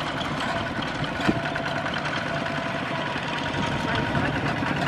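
Single-cylinder diesel engine of a two-wheel walking tractor chugging steadily in a rapid even rhythm as it hauls a trailer loaded with rice sacks.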